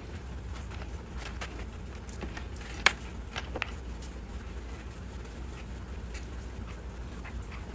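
Small clicks and taps of alligator clips being handled and clipped onto a thermocouple and multimeter test leads, with one sharp click about three seconds in and two lighter ones just after, over a steady low hum.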